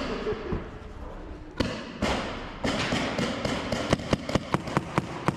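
Paintball gunfire: a few scattered sharp pops, then a quick string of about eight pops in the last second and a half.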